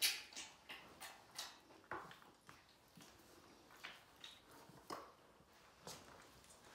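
Tiger cubs chewing and smacking on raw meat: faint, irregular wet clicks and smacks, about two a second, the loudest right at the start.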